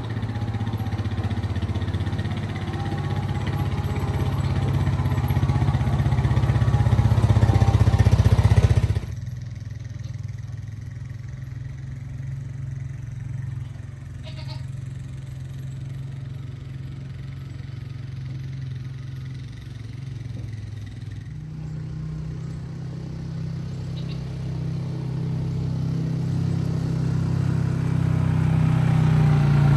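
A small engine, likely the ATV's, running steadily at a low speed. It drops sharply in level about nine seconds in, then rises a little in pitch and grows louder toward the end.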